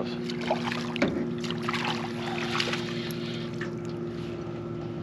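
A boat motor's steady hum, with scattered light knocks and rustles on the boat.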